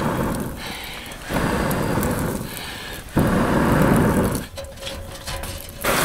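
Someone blowing on the embers of a campfire partly put out with water, to bring it back to flame: three long breathy blows, the third the loudest.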